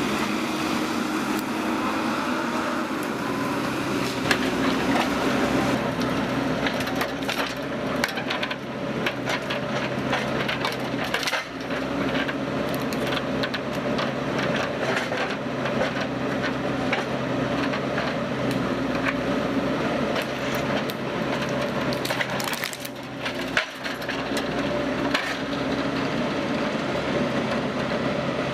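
A machine runs with a steady hum while wood cracks, snaps and splinters under it. The cracking starts about four seconds in and keeps coming irregularly.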